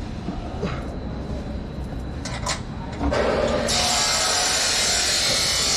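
A handheld power tool starts about three seconds in and runs steadily with a high, even whir, after a few light clicks of handling.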